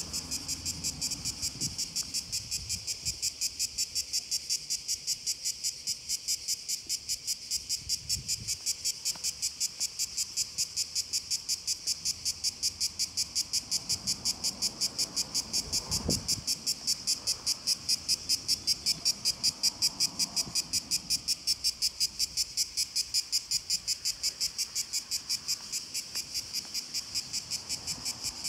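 A chorus of cicadas buzzing loudly and steadily, pulsing about four times a second. A brief low knock is heard about halfway through.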